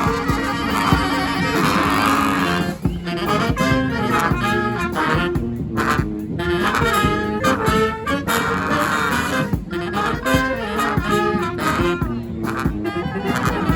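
Live brass band playing, with horns in short, punchy repeated phrases broken by sharp hits.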